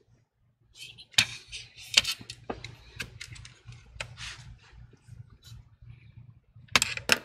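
Handling noises of a laptop teardown: light clicks, taps and short scrapes of small parts and a precision screwdriver on the open laptop chassis. They start about a second in, with two sharp clicks close together near the end.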